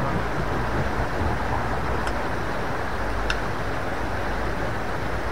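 Steady rush of a small river's fast water running below a footbridge, with two faint clicks about two seconds in and again a second later.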